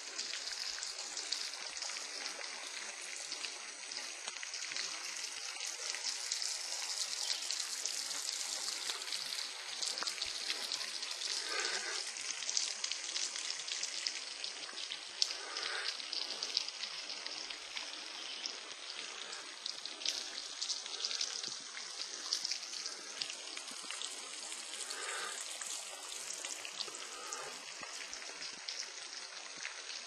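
Thin waterfall spattering: water falling in fine streams of drops from a rock overhang into a pool, a steady high patter.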